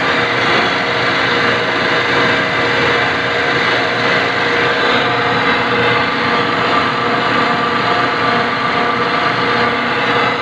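Industrial refrigeration compressor running in an ice plant machine room: a loud, steady mechanical drone with constant whining tones that never changes.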